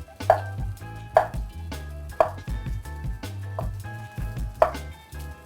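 Knife cubing breadfruit on a cutting board: four separate sharp chops, the first three about a second apart, the last after a longer pause. Background music with a steady bass runs underneath.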